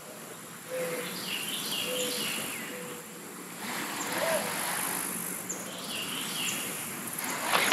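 Outdoor lakeside ambience: birds chirping several times over a steady high insect hiss.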